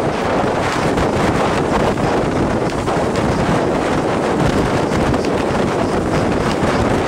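Steady wind buffeting the microphone on a sailboat under way, with the rush of water along the hull.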